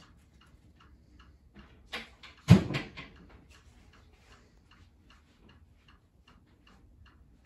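Steady quick ticking, about four ticks a second. About two seconds in comes a brief loud rustle and thump.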